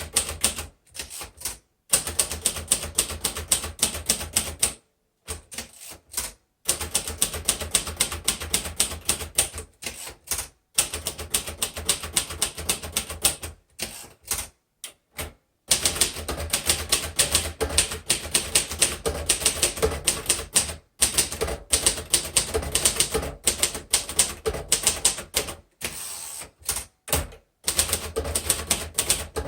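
A 1953 Royal Quiet De Luxe manual typewriter being typed on: quick runs of sharp clacks as the typebars strike the platen. The runs are broken by several pauses of a second or two.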